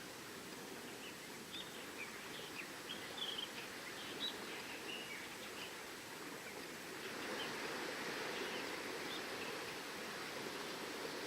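Small birds chirping in many short, high calls over a steady wash of surf. About seven seconds in, the wash of the waves swells louder and the calls thin out.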